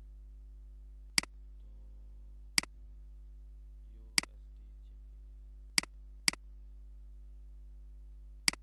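Computer mouse clicking: six sharp single clicks spread over several seconds, two of them in quick succession, over a faint steady hum.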